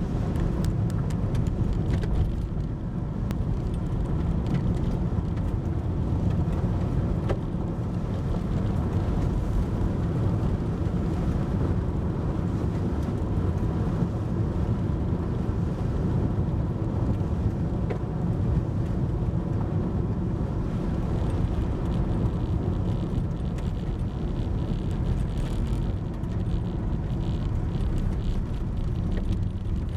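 Steady low rumble of road and engine noise from a moving car, with faint scattered ticks.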